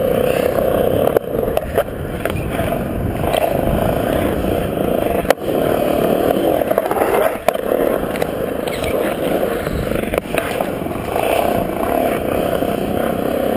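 Skateboard wheels rolling on smooth concrete, a steady rumble, broken by a few sharp clacks of the board, the sharpest about five seconds in.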